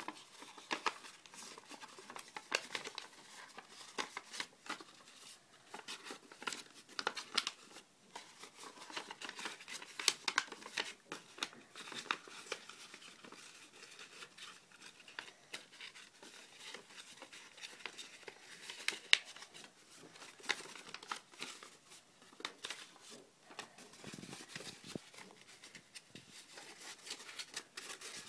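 A sheet of origami paper rustling and crackling as it is folded by hand and its creases pressed down, in irregular short crackles.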